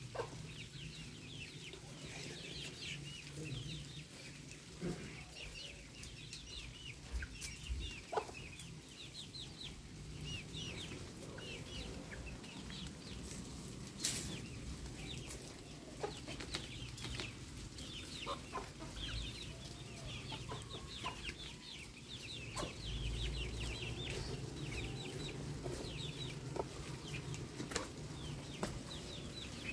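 Chicks peeping in many short, high chirps, with chickens clucking now and then. A single sharp click about halfway through.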